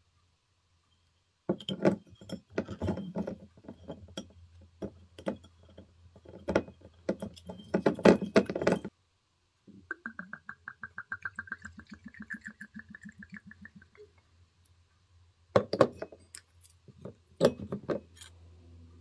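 Foil capsule crinkling and tearing off a bottle of Osborne port, with the stopper cork worked out. Then port glugs from the bottle into a crystal goblet for about four seconds, the pitch creeping up as the glass fills. A few clinks and foil crinkles come near the end.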